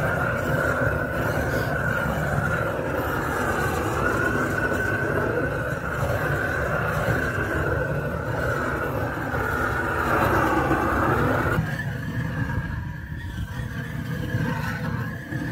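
Gas blowtorch flame burning steadily with a loud rushing hiss and a wavering tone, scorching wooden beehive bodies. Near the end it drops in level and thins out.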